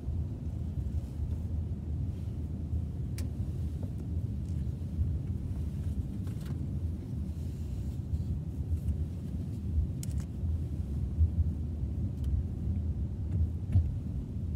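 Steady low rumble of a car driving, heard from inside the cabin, with a few faint clicks scattered through it.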